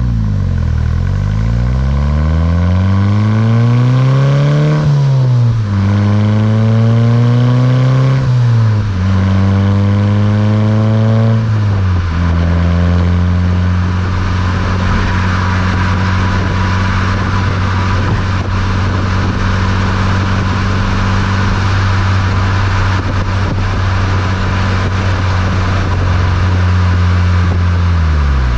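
A Mk6 VW GTI's turbocharged 2.0-litre four-cylinder, heard through its Beluga aftermarket exhaust, accelerating through three upshifts. The pitch climbs in each gear and drops at each shift, then the engine holds a steady drone at cruise and the revs fall away near the end. A steady rush of road and wind noise lies under it.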